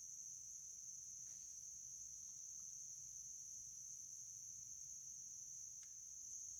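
Steady high-pitched insect chorus, with a faint click near the end.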